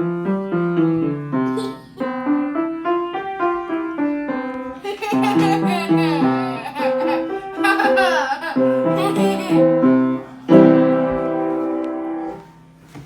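Piano music: a quick melody over chords, ending on a long held chord that fades away near the end.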